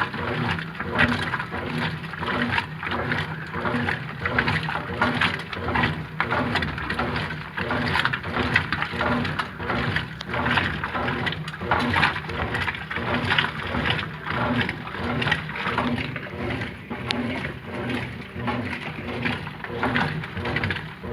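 Brastemp Ative 11kg washing machine agitating a load in a regular back-and-forth rhythm. Water sloshes in the tub, with a motor hum that pulses at even intervals.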